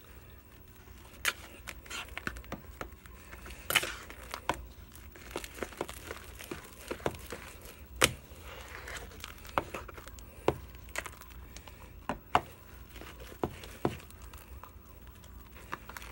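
Fluffy shaving-cream slime being kneaded and pulled by hand in a bowl, giving irregular sharp pops and crackles, about one or two loud ones a second, with softer crinkling between.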